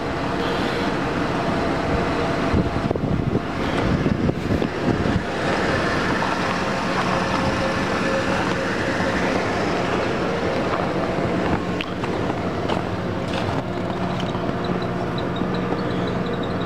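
1996 Ford F-150 pickup's engine idling steadily and quietly, its exhaust manifold leaks repaired.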